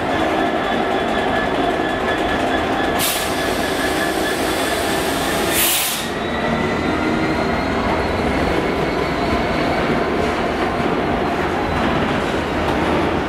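DB Cargo Class 66 diesel locomotive hauling a loaded freight train past at close range, its two-stroke V12 engine running under the rumble of the wagons' wheels on the rails. A thin, steady wheel squeal sits over the rumble, with two short hisses about three and six seconds in.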